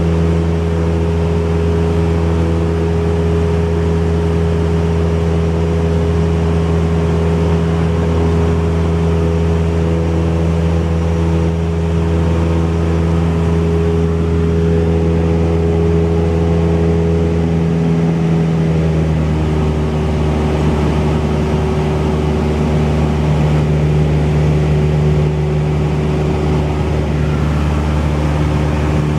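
Cessna 172's single piston engine and propeller running steadily with an even drone. The pitch steps down slightly about two-thirds of the way through.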